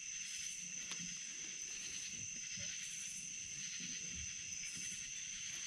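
Night insects chorusing: a steady high, shrill buzz, with fainter high pulses coming and going every second or two.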